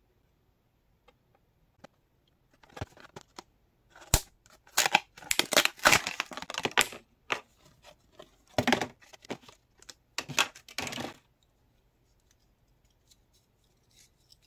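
Plastic blister packaging and its card backing being torn and crinkled open by hand, in a run of irregular rustling, tearing bursts with a sharp snap about four seconds in. The noise is loudest in the middle and stops about eleven seconds in.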